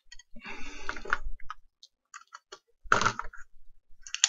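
Handling noise from a small metal-cased electronic module being turned in the fingers and its case worked loose: scattered small clicks and a scraping rustle in the first second or so, then a short knock about three seconds in, and a few more clicks near the end.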